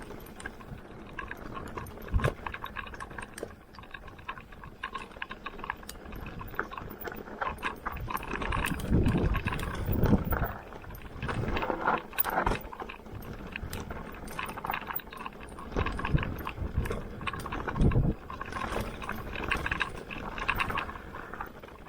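Mountain bike riding over a dirt trail: tyre noise with chain and frame rattling, and several heavy thumps from bumps or landings.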